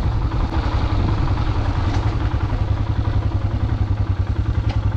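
Motorcycle engine idling steadily, with an even, rapid pulsing beat and no revving.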